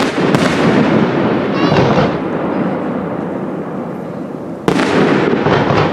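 Aerial firework shells bursting: a sharp bang at the start and another loud bang about four and a half seconds in, each followed by a long rolling echo and rumble.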